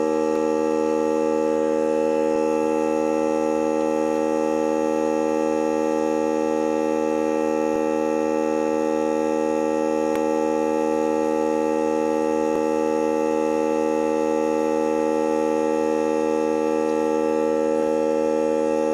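Air compressor running steadily with an even, unchanging drone while it pumps air through the hose to reinflate a tyre.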